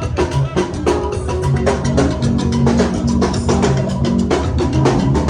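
Band music with a drum kit keeping a steady beat of kick and snare over a held bass line, played through a PA during a sound check.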